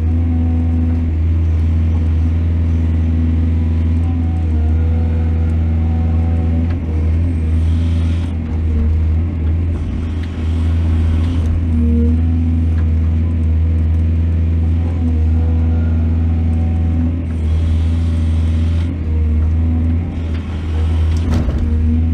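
Heavy diesel engine of a mining excavator running steadily under load with a deep, even rumble, with a few short rushes of higher-pitched noise over it.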